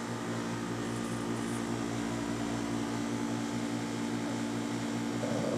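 Steady mechanical hum of a small electric motor, with a low buzzing drone that holds an even pitch.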